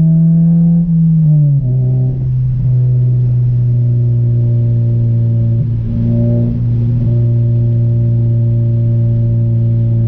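Honda Civic's four-cylinder engine droning through an Invidia aftermarket exhaust while driving. The note drops in pitch about a second and a half in, then holds steady, with a brief wobble around the middle.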